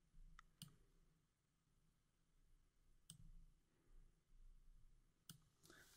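Near silence broken by three faint computer mouse clicks, about two and a half seconds apart.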